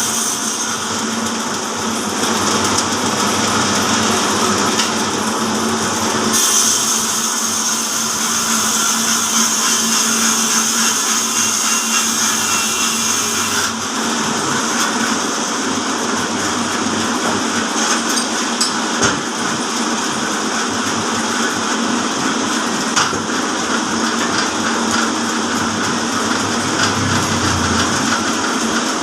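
Horizontal band sawmill powered by an electric motor, running steadily with its blade sawing through a log: a constant mechanical hum under a wide saw hiss. The hiss turns brighter from about six to fourteen seconds in.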